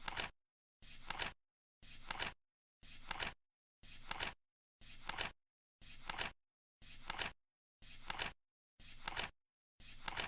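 Flip clock flaps turning over once a second, each a short swish ending in a sharp clack, as the countdown runs.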